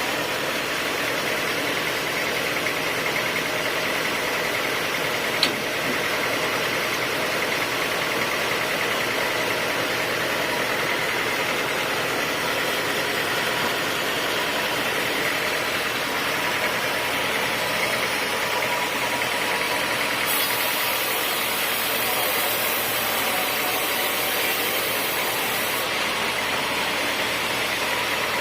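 Sawmill saw machinery running steadily, a continuous mechanical drone with a steady whine. A single sharp click comes about five seconds in, and a high hiss joins for several seconds in the second half.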